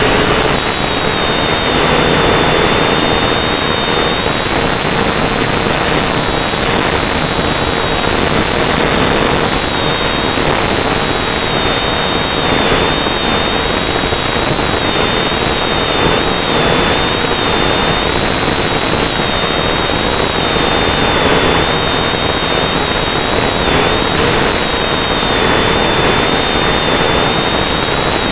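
Quadcopter's motors and propellers running steadily close to its own onboard camera: a constant whirring noise with a high whine that wavers slightly in pitch.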